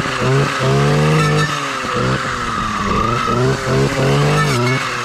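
Stihl two-stroke clearing saw engine running, revving up and falling back over and over as the throttle is worked.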